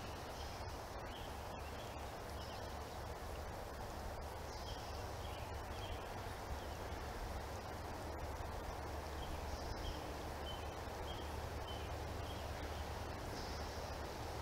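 Quiet riverside ambience: a steady low rumble and hiss, with birds chirping faintly and one bird repeating a short high song phrase every four or five seconds.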